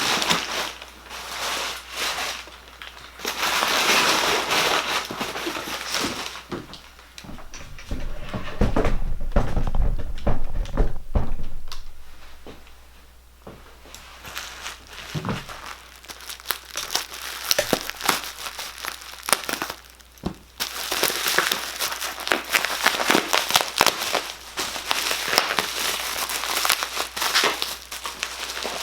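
Packaging being handled and pulled out of a box: crinkling and rustling in irregular bursts, with some dull knocks and bumps of handling in the middle.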